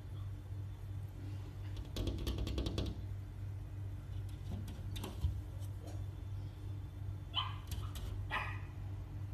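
Puppy giving two short barks close together near the end, with a quick run of taps for about a second near the start.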